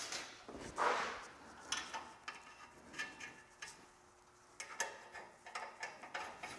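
Nuts being started by hand on steel U-bolts, giving scattered light metallic clicks and ticks, one a little louder about a second in.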